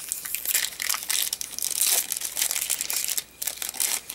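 Foil Yu-Gi-Oh booster pack wrapper crinkling and crackling as it is handled, in irregular rustles that grow quieter about three seconds in.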